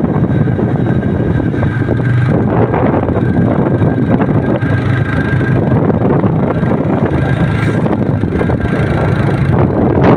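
Wind buffeting the microphone of a moving motorbike, with its engine running steadily underneath.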